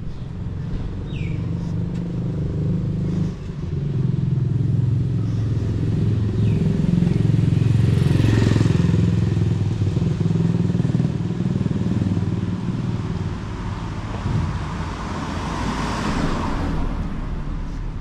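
Motor vehicles in street traffic: a steady low engine hum, with vehicles passing close by about halfway through and again near the end.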